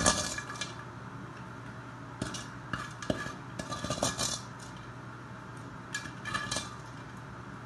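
A utensil scraping and clinking against a cooking pan in several irregular bursts while pili nuts are stirred, over a steady low hum.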